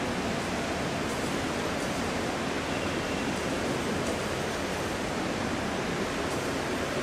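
Steady, even hiss with no speech or music, unchanging throughout.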